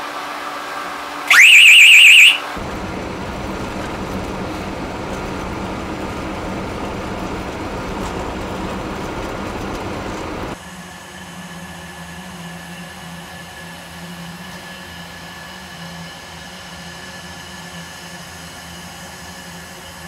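Fire alarm sounder being tested: one loud, high-pitched tone lasting about a second, sliding up at its start. It is followed by engine and road noise inside a moving car's cabin, which gives way about ten seconds in to a quieter steady hum.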